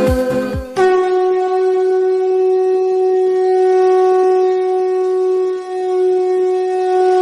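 Intro music with a beat cuts off just under a second in, and a single sustained drone note takes over, held steady at one pitch with its overtones, as used to give the singer the key.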